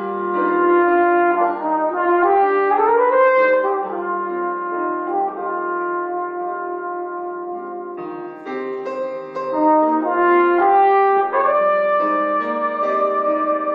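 Solo French horn playing slow, sustained notes, with a rising slide about three seconds in.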